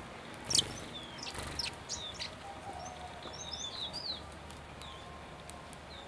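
Sparrows chirping: a busy run of short, sharp, high chirps that drop in pitch, the loudest about half a second in, with quicker twittering in the middle and fewer calls near the end.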